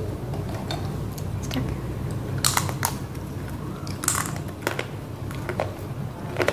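Dry, brittle roasted multani mitti (Fuller's earth clay) cracking as it is bitten: a handful of sharp, separate crunches a second or so apart.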